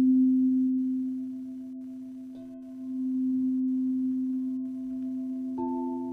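Quartz crystal singing bowls ringing: one steady low tone sung from a bowl as a mallet circles its rim, swelling and easing. A second, higher bowl note comes in about two and a half seconds in, and another struck note joins near the end.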